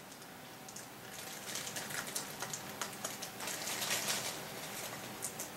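Old, stiff plastic wrapping crinkling and crackling in a quick, irregular patter as it is peeled off a brass model train car.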